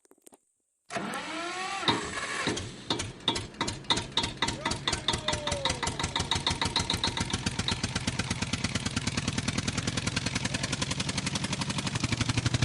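A small engine, presumably powering the homemade tractor, starts up about a second in and runs with a pulsing beat. The beat is uneven at first, then steadies and quickens as it speeds up.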